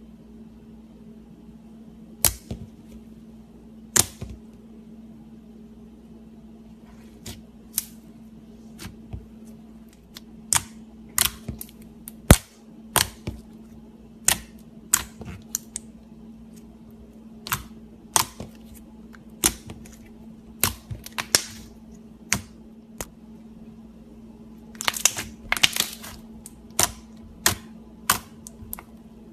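Butter slime being pressed and stretched, giving sharp popping clicks at irregular intervals, with a quick run of pops near the end. A steady low hum sits underneath.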